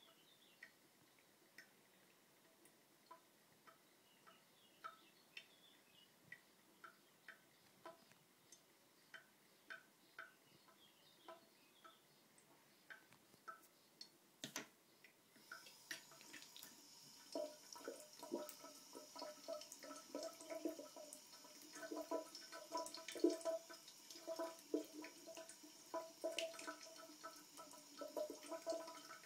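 Water from a tap dripping into a ceramic washbasin, single drops falling about once a second. About halfway through it turns into a thin running trickle that splashes and patters irregularly as a cat paws and pokes its head into the stream.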